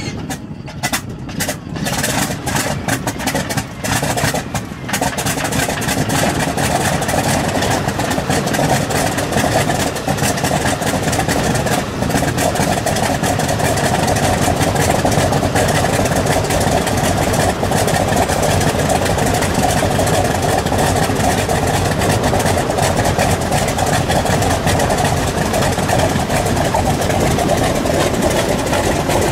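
Antonov An-2's nine-cylinder Shvetsov ASh-62 radial engine catching on its first start after installation: a few seconds of uneven, separate firing bangs, then it settles into steady running at about five seconds in.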